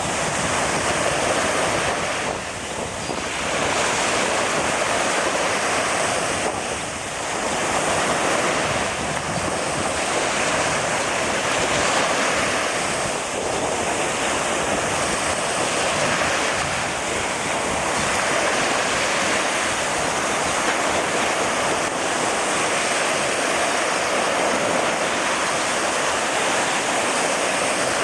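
Steady rush of ocean surf mixed with wind buffeting the microphone, with two brief dips in level about two and a half and seven seconds in.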